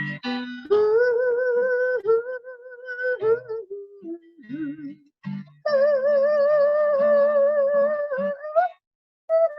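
A woman singing a high, wordless cowboy-style refrain over acoustic guitar chords. It is two long notes held with vibrato: one from just under a second in, and a higher one from about five and a half seconds in, with short sliding phrases between them.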